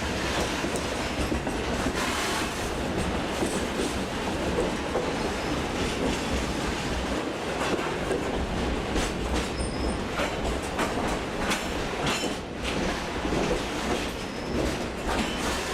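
Freight train cars rolling past at speed: a steady rumble of wheels on rail with many quick clacks as the wheels cross rail joints.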